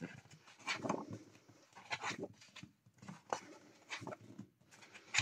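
Pages of a paperback colouring book being turned and handled: soft, irregular paper rustles and brushes of the hand on the paper.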